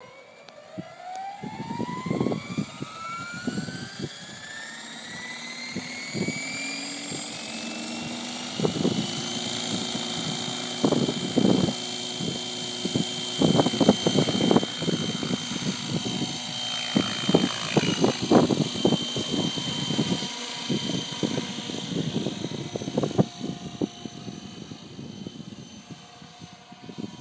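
JetRanger helicopter spooling up: a whine rises steadily over about the first ten seconds, then holds at a steady high pitch, with irregular low thumps throughout.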